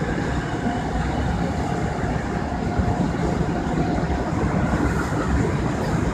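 Seoul Metro Line 3 new 3000-series electric train running steadily through a tunnel: a continuous rumble of wheels on rails, with a faint steady whine above it.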